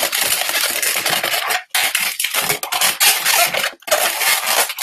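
Latex 260 twisting balloon squeaking and rubbing loudly against hands as it is squeezed into bubbles and twisted into a pinch twist, in long stretches with two short pauses.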